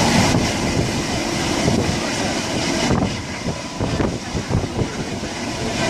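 Heritage passenger carriage of a steam-hauled train running along the line, heard from inside: a steady rumble of wheels on rail with rushing air noise. The high rushing hiss eases about three seconds in.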